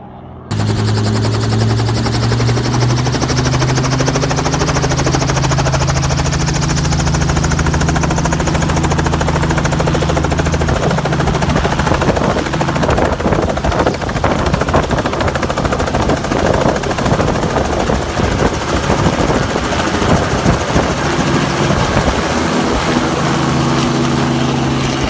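Light helicopter's engine and rotor running close by, starting abruptly with a loud steady drone. From about eleven seconds in a fast, choppy rotor beat takes over, and the steady drone comes back near the end.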